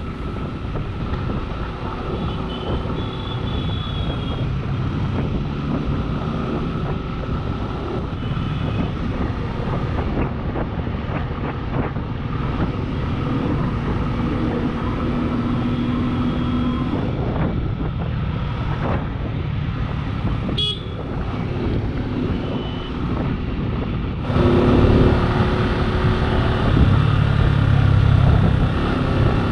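Street traffic with vehicles running by and short car-horn toots every few seconds; it grows louder about 24 seconds in.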